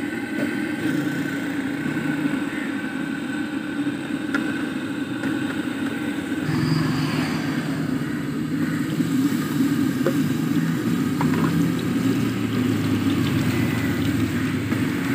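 A steady engine-like drone with a hum in it, getting louder about six and a half seconds in.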